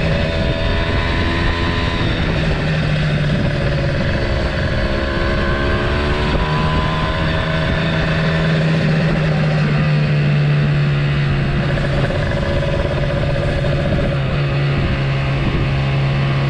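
Kawasaki Ninja motorcycle engine running steadily while riding, with wind rush on the microphone; the engine note rises a little and eases back about halfway through.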